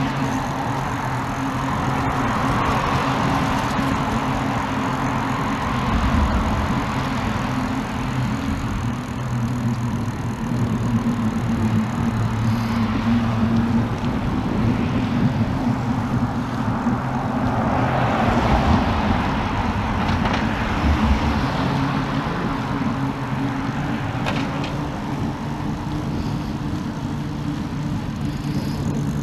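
Riding noise heard from a bicycle: a steady low hum, with passing road traffic rising and falling, loudest a couple of seconds in and again a little past halfway.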